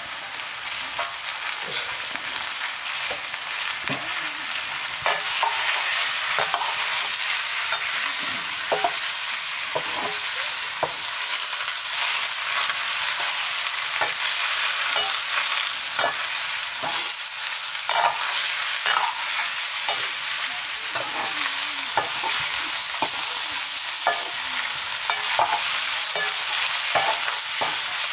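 Sliced pumpkin frying in a black wok over a wood fire, with a steady sizzle, stirred with a metal ladle that clinks and scrapes against the pan. The sizzle gets a little louder about five seconds in.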